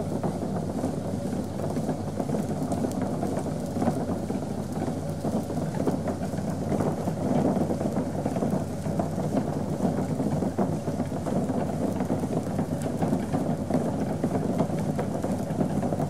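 Liquid bubbling and crackling steadily in a brewing vessel, over a steady low hum.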